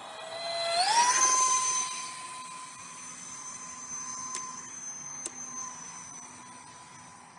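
Electric ducted fan of a 3S park-flyer RC jet whining. Its pitch climbs sharply about a second in as the fan spins up, loudest just after, then holds steady and grows fainter as the jet flies off.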